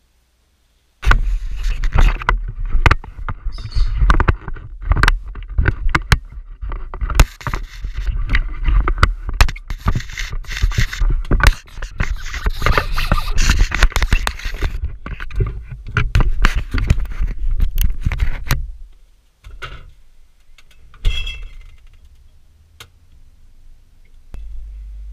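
Handling noise picked up by a GoPro sealed in its waterproof housing: dense, irregular knocks, clicks, scrapes and rubbing with a low rumble as hands carry the camera and set it among refrigerator shelves. After about eighteen seconds it dies down to a few faint knocks, and a steady low hum starts near the end.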